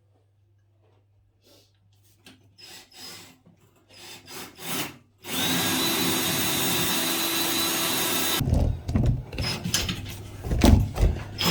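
Power drill running steadily for about three seconds, with a fixed high whine, while a toilet cistern is being changed. Scattered knocks and clicks come before it and a run of knocks and thumps after it.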